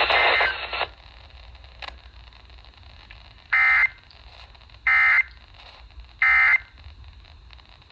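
Emergency Alert System end-of-message signal: three short bursts of buzzy digital data tone, about 1.3 s apart, marking the end of the flash flood warning broadcast. Before the first burst, broadcast audio cuts off within the first second.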